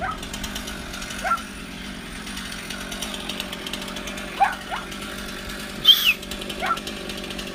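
Chainsaw engine running steadily during a tree removal, with a dog barking a few times and a sharp high squeal about six seconds in.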